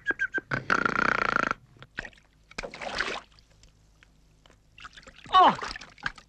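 Cartoon sound effects and vocal noises: short high blips, then two raspy noisy sounds, the first with a steady tone running through it. About five seconds in comes the loudest sound, a quick pitch glide falling from high to very low.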